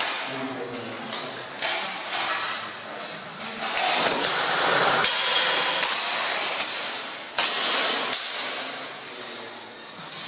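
Steel longswords clashing against each other and against plate armour: a dozen or so sharp, ringing metal strikes, densest around the middle.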